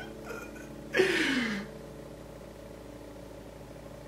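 A man lets out a short sigh about a second in, falling in pitch. After it there is only a faint steady hum of room tone.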